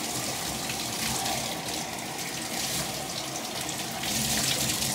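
Water running steadily from a bathtub tap into the tub as a shampooed puppy is rinsed, with a slight swell near the end.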